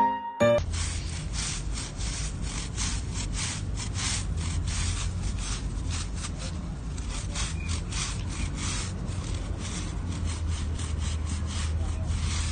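Push broom scrubbing back and forth over an alligator's scaly back, in quick repeated scraping strokes.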